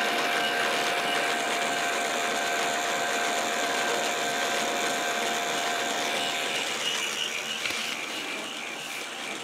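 K'nex ball machine's motor and plastic gear train running: a steady whirring whine with a few held tones. It grows a little fainter near the end.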